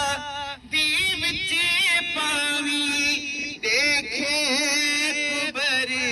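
A noha, a Shia lament, sung by a male reciter into a microphone and carried over loudspeakers. The chanted melody runs on with short breaths about half a second in and again near the middle.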